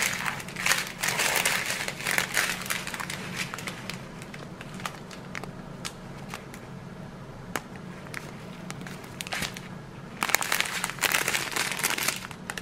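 Small clear plastic bags of round resin diamond-painting drills crinkling as they are handled and laid out, in two busy spells, one at the start and one about ten seconds in, with scattered light rustles and clicks between.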